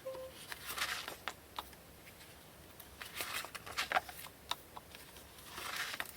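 Photo cards and paper inserts being handled: rustling and light clicks and taps as cards are slid and turned over, in three short spells.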